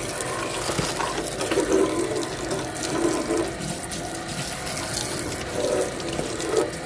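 Water running from a tap and splashing as a toy truck is washed by hand, with small knocks of the toy being handled.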